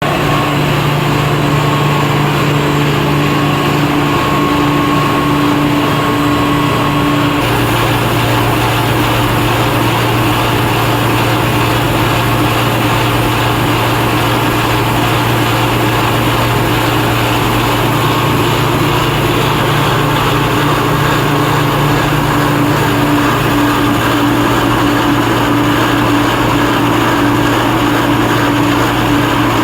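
Core-filled snack food extrusion line running: a steady, loud machine hum with a few constant tones over a noisy rush, its pitch shifting abruptly about seven seconds in.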